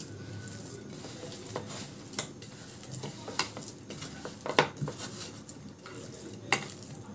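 Hands kneading a crumbly dough of milk powder, desiccated coconut and sugar, moistened with milk, in a bowl: soft, steady rustling and squishing, with scattered light clicks against the bowl, the sharpest about four and a half seconds in.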